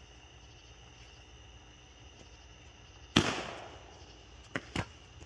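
A firework goes off with one sharp, loud bang about three seconds in, trailing a short hiss, then two smaller pops over a second later. Crickets chirp steadily underneath.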